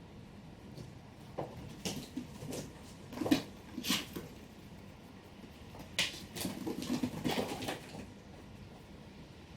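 Two kittens playing: two flurries of light taps and thumps, one about a second and a half in and another about six seconds in.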